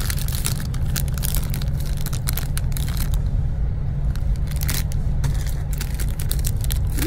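Steady low rumble of a moving bus heard from inside the cabin, with the crinkling and crackling of a plastic snack wrapper being handled and opened.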